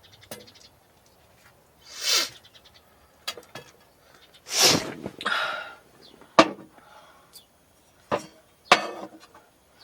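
Cooking-prep handling noises: a few short rustling bursts, the loudest about halfway through, and several sharp clicks and knocks of things being picked up and set down.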